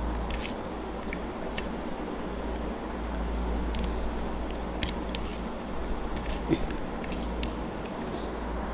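Hand-mixing cooked rice with the fingers on a plastic plate: soft squishes with scattered small clicks as fingers and grains meet the plate, over a steady low hum.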